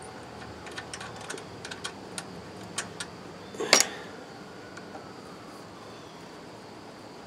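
Small metallic clicks and taps of a screwdriver and loose bolts being worked against the carburetor mounting on a push mower's engine, with one louder clack about three and a half seconds in.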